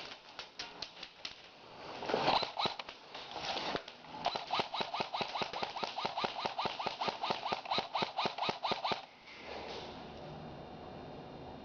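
An airsoft gun firing a long, even string of shots, about seven a second, for some four seconds before stopping abruptly. A few scattered clicks and a brief louder rustle come before it.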